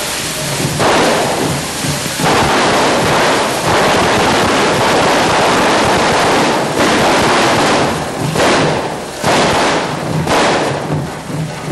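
Hand-held devil's firework fountains (carretilles) hissing hard as they spray sparks, with a run of loud cracks and bangs near the end. Drums beat faintly underneath.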